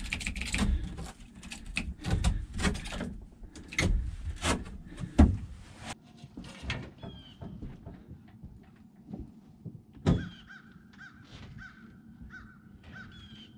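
Close handling knocks, clatter and rustling as a hand works at a boat's delaminated, rotten plywood deck core, loudest with a sharp knock a little past five seconds in. After about six seconds the knocking stops and birds call repeatedly in short notes, with a single thump about ten seconds in.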